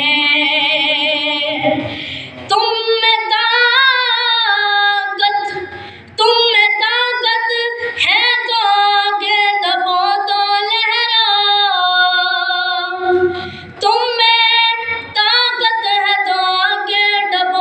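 A naat sung unaccompanied by a single high male voice into a microphone, with long, ornamented notes that waver in pitch. The singer pauses briefly for breath twice.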